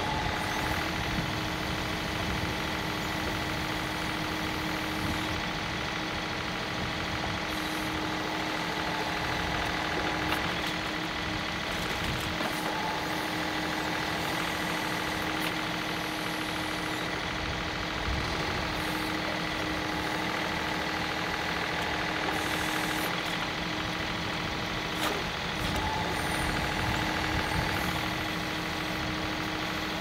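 John Deere 2038R compact tractor's diesel engine running steadily under backhoe work, with a few brief knocks as the bucket digs muck and lily pads.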